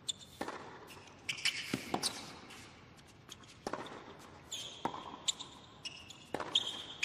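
Tennis rally on a hard court: a series of sharp racket-on-ball strikes roughly a second or so apart, with players' shoes squeaking on the court between shots.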